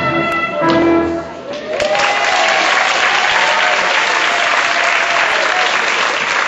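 Show music ends on a held final chord, and about two seconds in an audience breaks into steady applause.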